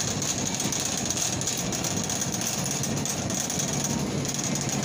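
Wire shopping cart rolling across a store floor with a steady rattle.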